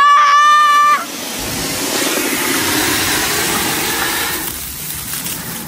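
Diwali ground fountain firecrackers (anar) spraying sparks with a loud steady hiss. At the start a whistle-like tone rises and holds for about a second before cutting off.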